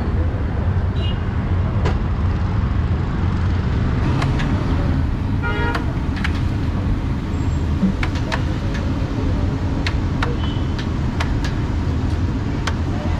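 Steady low rumble of street traffic, with a brief horn toot about five seconds in and scattered sharp taps of eggs being cracked on the rim of a large steel frying pan.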